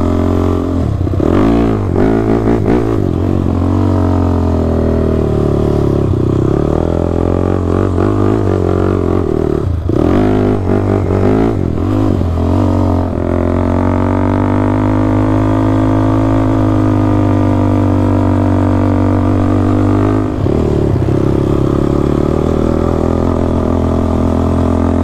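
Sport ATV engine running under load while riding, its pitch rising and falling with the throttle for the first few seconds and again around ten to thirteen seconds in, then holding steady at a cruise.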